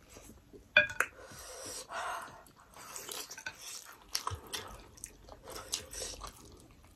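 Eating sounds as two people chew mutton momos and smack their lips, with small wet clicks throughout. A sharp, short clink of dishes comes about a second in.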